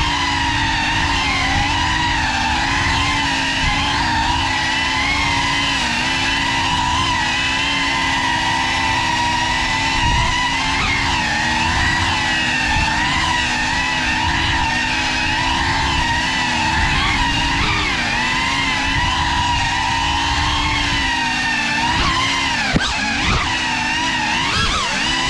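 Cinelog35 cinewhoop FPV quadcopter's motors and propellers whining steadily, the pitch wavering up and down with the throttle. Near the end the pitch swings more sharply, and there is a brief click.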